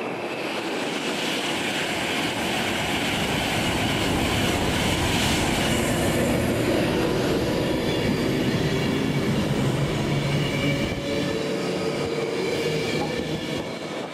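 A train running past on the rails: a loud, steady rush of wheels on track, with thin whining tones coming in about halfway through.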